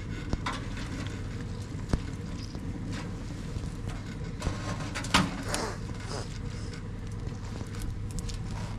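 Wood fire burning inside a sheet-metal stovepipe: a deliberately started chimney fire fed with sticks dropped in through the top. It gives a steady low rumble with a few sharp pops and knocks.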